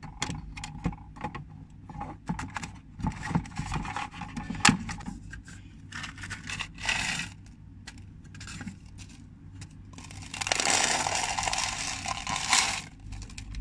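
Small cups and toy kitchen pieces being handled: scattered clicks, taps and scrapes, with a dense rustling hiss lasting about two seconds near the end.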